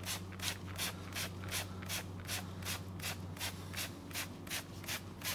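Hand trigger spray bottle pumped rapidly, about four short hissing spritzes a second, spraying melted cocoa butter for a velvet (velour) coating. A steady low hum runs underneath.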